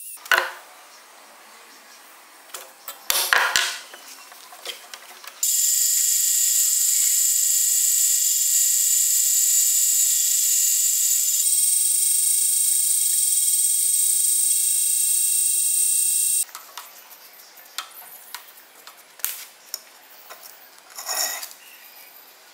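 Clinks and scraping of steel parts being handled, then a drill press boring through a steel block for about eleven seconds: a loud, steady, high-pitched whine whose pitch steps once partway through. More clinks and scraping follow as the drilled block is handled.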